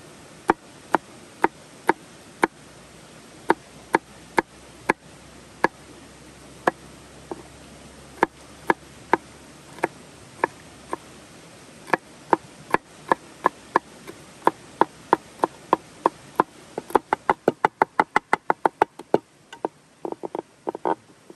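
Chef's knife cutting a green chili pepper on a wooden cutting board: a sharp knock with each cut, slow and uneven at first, then speeding into fast, close-set chopping near the end.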